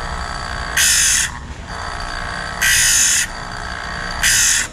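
Small electric piston-ring gap grinder running steadily, with three loud half-second grinding passes as the end of a piston ring is pressed against the wheel. It is widening the ring's end gap, which is still too tight.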